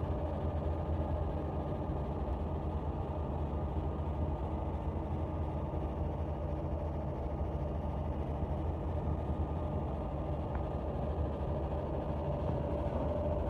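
50W fiber laser marking machine running during a deep engrave on aluminum: a steady low hum with a constant mid-pitched tone over it.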